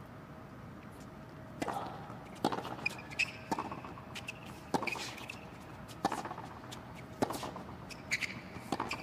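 Tennis rally on a hard court: a string of sharp racquet strikes on the ball, about one a second, starting with the serve about a second and a half in.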